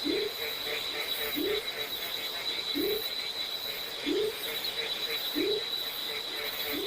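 Night chorus of tree frogs: a low call that rises in pitch, repeated about every second and a half, over the steady high trill of insects.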